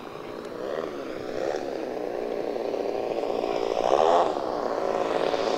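Twin internal-combustion engines of a large-scale OV-10 Bronco RC model airplane running in flight, with a flyby about four seconds in where the sound swells and the pitch drops as the model passes.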